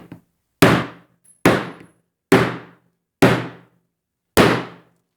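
About six hard blows struck one after another, less than a second apart, each a sharp bang that rings out briefly. They are the blows that break an iPhone's screen.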